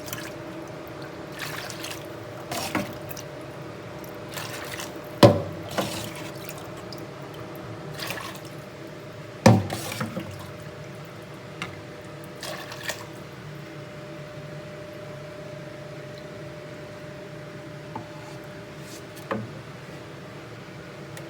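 Water splashing and dripping in a clogged kitchen sink: irregular splashes and drops, two sharp loud ones about five and nine seconds in, growing sparse in the second half. A steady low hum runs underneath.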